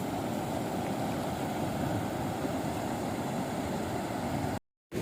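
Rainwater runoff rushing steadily as a dense, even roar of flowing water. The sound cuts out abruptly for a moment near the end.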